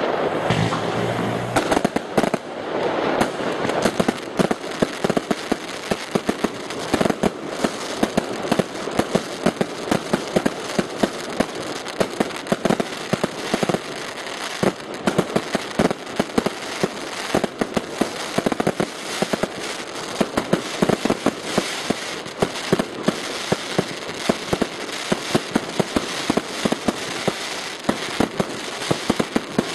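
Fireworks going off in rapid succession: a dense, unbroken crackle of small reports, with sharper, louder bangs standing out every second or so.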